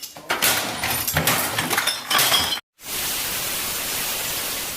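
A quick run of sharp clinks and knocks, then a sudden brief cut, then a steady hiss that fades near the end.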